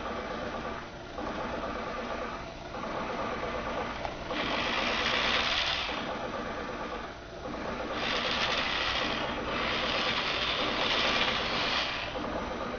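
A motor running steadily, with three louder hissing rushes partway through.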